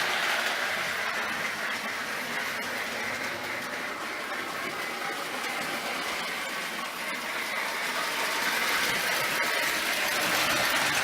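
Marx No. 1666 toy steam locomotive running on three-rail O-gauge track, its Sound O' Power tender giving out a steady staticky hiss meant to imitate train sounds, mixed with the running noise of the wheels on the track. It is a little louder at the start and near the end, quieter in the middle.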